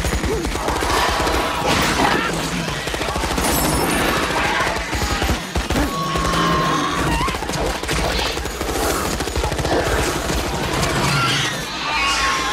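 Rapid automatic rifle fire in sustained bursts from an action-film soundtrack, with a voice and music mixed in.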